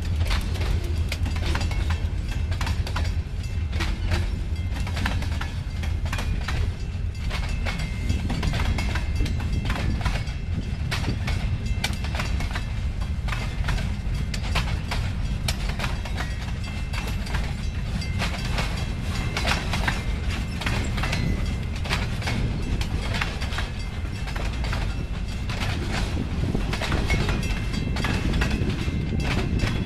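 Freight train of boxcars rolling past close by: a steady low rumble of steel wheels on rail with a constant run of clicks and clanks as the wheels cross rail joints. Faint high squealing tones come and go.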